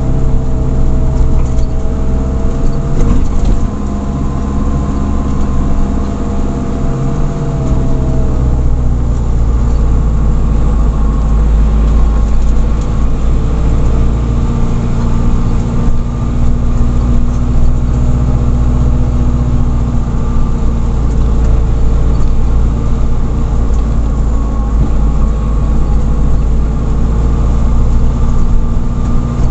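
Camper van's engine droning steadily with road noise, heard from inside the cab while driving. A higher whine over the engine note falls slightly and fades out about eight seconds in.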